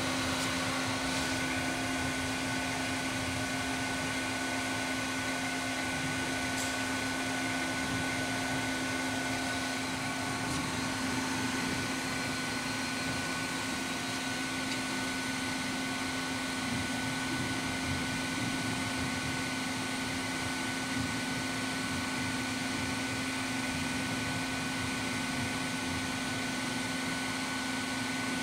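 Royal Master TG 12x3 centerless grinder running with no part, its main grinding wheel spindle and regulating wheel drive turning: a steady whir with a constant low hum and a faint high whine.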